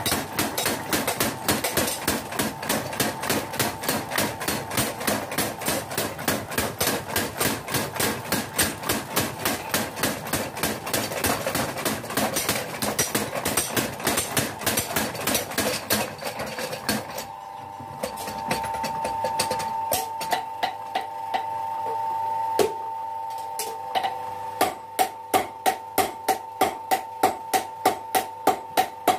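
Belt-driven mechanical power hammer pounding a red-hot spring-steel blade blank, fast and even at about three blows a second. The blows stop for several seconds, leaving a steady hum and a few scattered knocks. Near the end they resume at a slower pace of about two a second, each blow sharper and louder.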